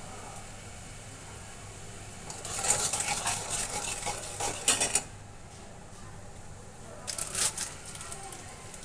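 A metal spoon stirring sugar syrup in a metal pot, scraping and clinking against the pot in two spells of a couple of seconds each with a short pause between.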